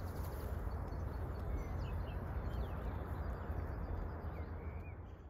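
Outdoor field ambience: a steady low rumble and hiss with a few faint bird chirps, fading out near the end.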